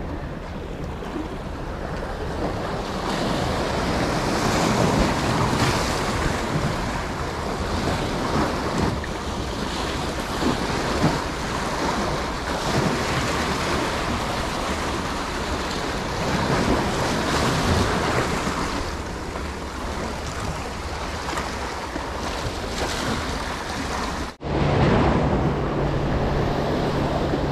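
Sea waves surging and breaking against concrete breakwater blocks in a heavy swell, with wind buffeting the microphone. Near the end the sound cuts out for a moment, and a steady low hum then runs under the surf.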